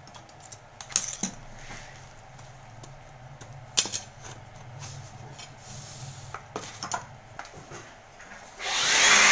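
Scattered plastic clicks and knocks as the parts of an HP 12A laser toner cartridge are pulled apart and set down. Near the end comes a loud burst of blowing air from an air blower.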